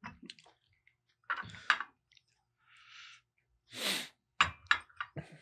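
Quiet, scattered small handling sounds of people writing at a table: short clicks and scratches of pens on paper, with a brief hiss about four seconds in.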